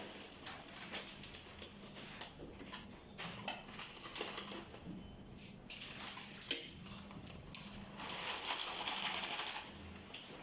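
Handling noise at a foot-pedal bag sealer: scattered clicks and knocks with plastic bags rustling, a sharp clack about six and a half seconds in, and a longer spell of rustling near the end.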